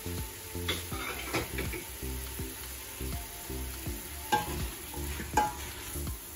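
Meat, onion and garlic frying in oil in a stainless steel pot, sizzling as a wooden spoon stirs them, with the spoon clacking against the pot, loudest twice about four and five seconds in.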